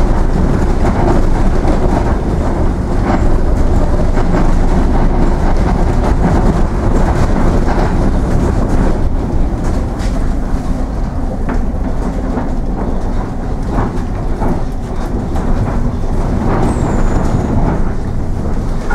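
Cabin noise of a SOR EBN 9.5 electric bus on the move: a loud, steady rumble with rattling of the body and fittings as the bus rolls over cobblestone paving.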